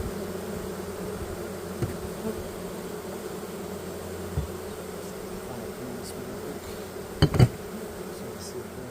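Honeybees buzzing in a steady drone over an open hive, with two sharp knocks in quick succession about seven seconds in.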